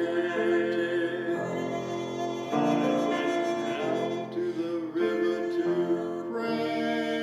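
Keyboard music in a church service: sustained chords held for about a second each before changing to the next.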